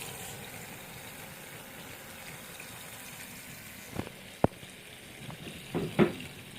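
Water running and splashing steadily, with a few sharp clicks or knocks, the loudest cluster about six seconds in.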